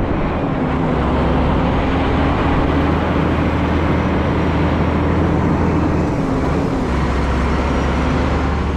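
Heavily loaded truck's diesel engine running steadily under load with road noise, a low drone and a steady engine note throughout.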